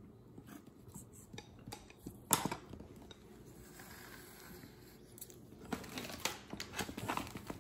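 Handling noise from a stack of lithium pouch cells with a green busbar board being moved on a stone countertop: scattered light clicks and knocks, one sharper knock a couple of seconds in and a run of small clicks near the end.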